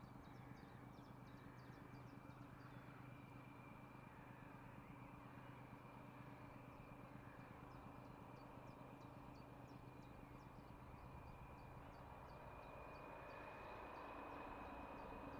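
Faint, distant drone of a diesel locomotive working across the valley, growing a little louder near the end, with small birds chirping.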